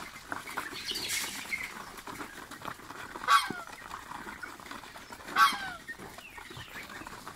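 Mixed flock of ducks, chickens and geese feeding from a pan: a steady clatter of pecking and scuffling, with two short loud calls from one of the fowl about two seconds apart, each falling in pitch.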